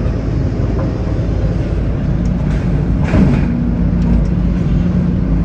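Sawmill headrig machinery running steadily, the log carriage and saw heard from inside the sawyer's control booth. A brief louder swell with a short falling pitch comes about three seconds in.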